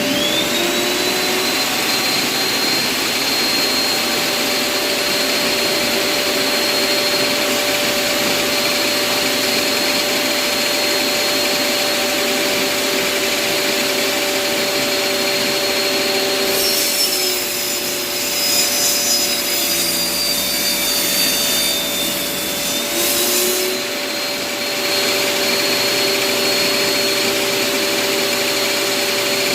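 Bosch circular saw in a table-saw setup spinning up at the start, then running free with a steady whine. From about 17 s to 24 s the blade cuts into wood: the pitch sags under load and a rasping hiss is added. It then climbs back to its free-running whine.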